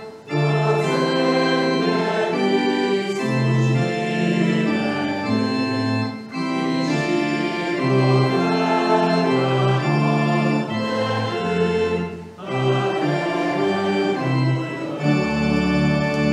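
Church organ playing a hymn tune in sustained chords, with short breaks between phrases about every six seconds.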